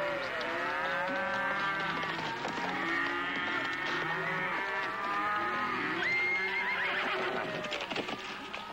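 A herd of cattle mooing, many animals calling at once with overlapping, rising and falling moos.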